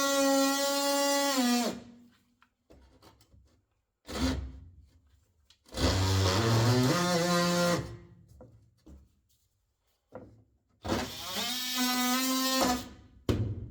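DeWalt oscillating multi-tool cutting a thin sheet of wood flooring in short runs: a high, steady buzz that starts and stops about three times, dropping in pitch each time it winds down, with short pauses between.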